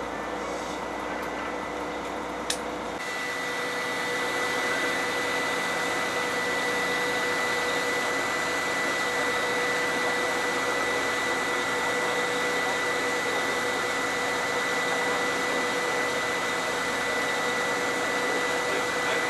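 Fishing boat's engine running steadily: a constant drone and hiss with a thin, steady whine through it.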